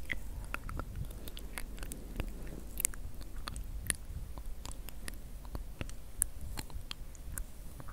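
Fingers picking and pulling at fluffy white fibre held against the microphone: a steady run of small, irregular crisp crackles and clicks over a low rumble.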